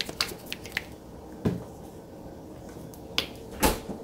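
A few sharp clicks and light taps as a plastic squeeze bottle of yellow mustard and spice-jar caps are handled on a kitchen counter, with the loudest snap near the end.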